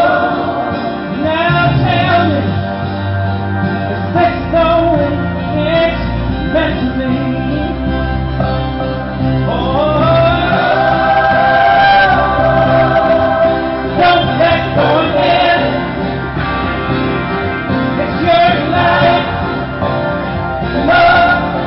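A male singer and band performing a slow song live through a PA system, with a long held sung note about ten seconds in.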